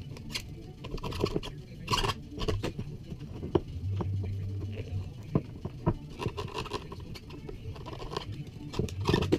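Utility knife scraping and cutting the old grip off a steel Estwing hatchet handle, in short irregular strokes with small clicks as cut pieces drop onto the wooden workbench.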